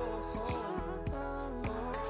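Pop song playing as background music, with a steady beat between sung lines.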